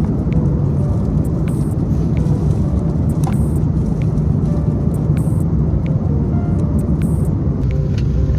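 Steady low rumble of an airliner heard from inside the cabin, with a few faint rattles over it.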